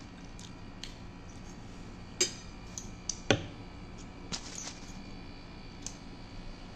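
Scattered light clicks and clinks at irregular intervals, the two loudest a little over two and three seconds in.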